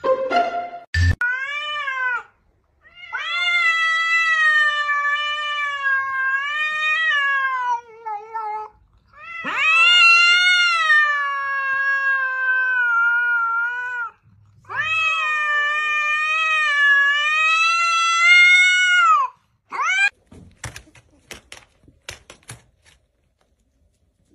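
Cat yowling in a standoff with another cat: three long drawn-out calls of several seconds each, wavering in pitch, with shorter calls before and after. A few faint taps follow near the end.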